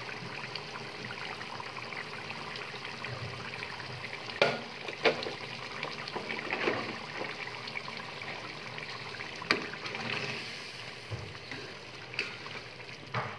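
Beef curry gravy bubbling steadily as it simmers in a metal pot, with a few sharp clicks scattered through it. Near the end a ladle stirs through the gravy.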